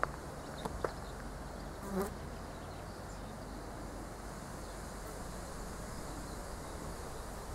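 Insects buzzing steadily, with a few faint ticks in the first second and a brief louder sound about two seconds in.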